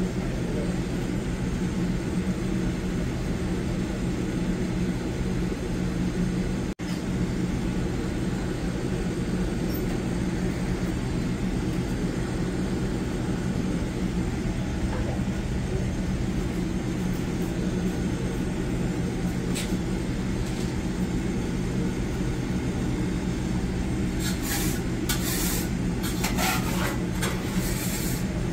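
Kitchen machinery running with a steady low hum that cuts out for an instant about seven seconds in. A few short scratchy sounds come near the end.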